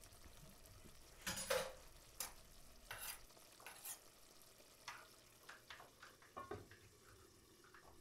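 Cooking utensils clinking and scraping against pots and pans on a stovetop: a handful of light, scattered clatters, the loudest about a second and a half in.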